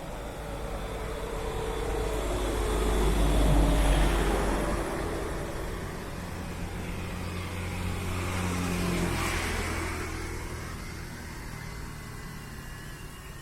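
Two motor vehicles pass by one after the other, each engine swelling and fading away, and the first is the louder.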